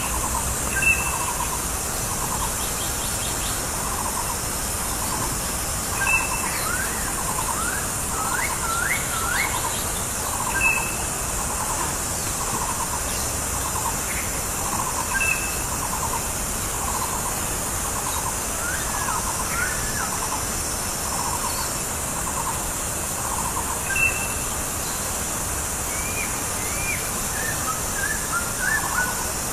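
Masked laughingthrush calling: a pulsing call repeated about once a second, short high whistled notes every few seconds, and three runs of quick upslurred whistles, over a steady high hiss.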